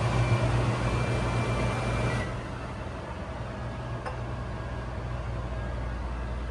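GE over-the-range microwave's vent fan running with a steady hum and air rush. About two seconds in a short beep sounds and the fan drops to a lower, quieter speed, running on from there.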